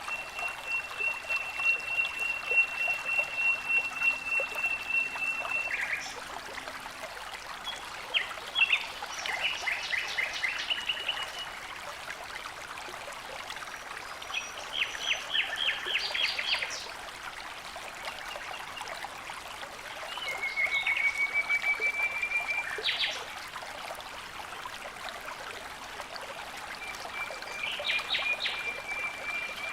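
Steady rush of running water, with a songbird singing long, high trills over it about five times, each a few seconds long.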